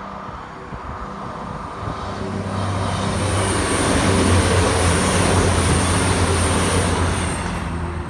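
Class 221 Super Voyager diesel-electric unit passing at speed: the hum of its underfloor diesel engines and the rush of wheels on rail build over the first couple of seconds, peak as it goes by, and fade near the end. A high whine sits above it while the train is close.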